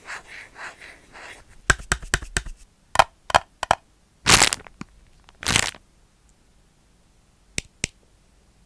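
Close-up plastic crackling and clicking: soft rustling at first, then a run of sharp clicks, two longer crackles, and two faint clicks near the end.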